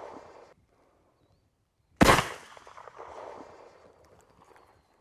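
A 26.5mm flare pistol fires once, about two seconds in, with a sharp report that trails off over a couple of seconds. At the very start, the tail of the previous shot is still dying away.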